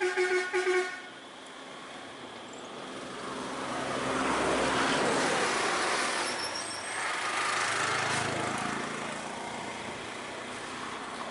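A few short toots of a vehicle horn in the first second, then a motor vehicle passing close by, its engine and road noise swelling and then easing off.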